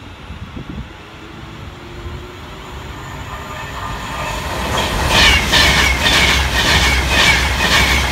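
Class 390 Pendolino electric express train approaching and running through the station at speed. It grows steadily louder over the first five seconds, then turns into a rhythmic clatter of wheels over the rail joints, about two to three beats a second, as the carriages pass close by.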